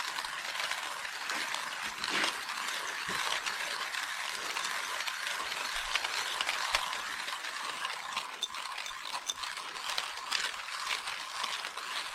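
KINGrinder K1 manual coffee grinder being cranked by hand, its burrs crushing a full load of coffee beans: a continuous dense crackling of many small cracks. The beans are still being ground, so the crank is working against the burrs' friction.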